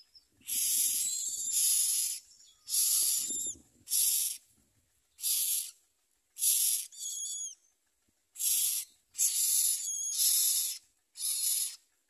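Common myna nestlings giving begging calls: about ten hissing rasps in irregular succession, each under a second long, some with a thin falling whistle inside.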